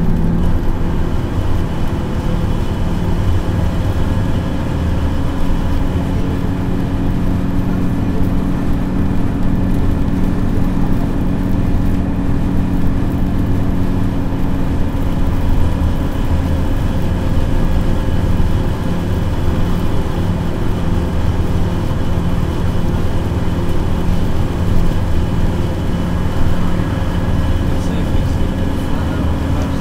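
Dennis Trident double-decker bus's diesel engine being worked hard at a steady road speed, heard from inside the saloon as a steady drone of unchanging pitch over tyre and road noise.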